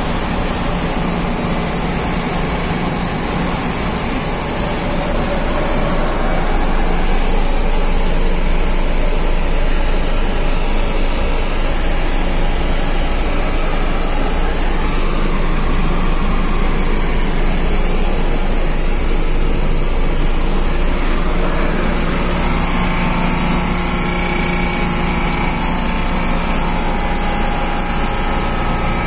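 Ship's air-conditioning plant machinery running: a steady, loud drone with a constant low hum and no pauses.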